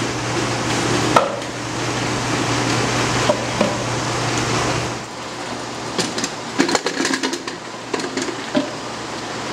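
Steady hum of honey-extraction machinery. About five seconds in the hum drops away and a run of sharp knocks and clatters follows, from wooden hive boxes and frames being handled on the line.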